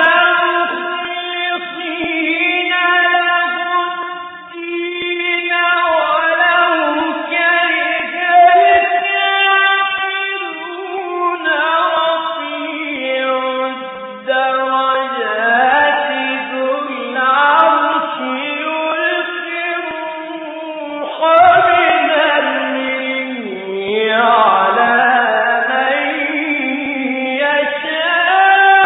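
A single man's voice reciting the Quran in the melodic Egyptian mujawwad style, with no instruments. He holds long notes and decorates them with gliding, ornamented pitch runs, phrase after phrase with short breaths between.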